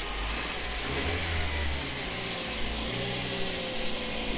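Toyota HiAce van's engine idling smoothly and evenly, moments after being started.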